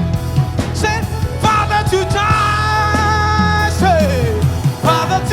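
Gospel praise-and-worship band music: a steady bass under a wavering, held melody line, with a sliding fall in pitch about four seconds in.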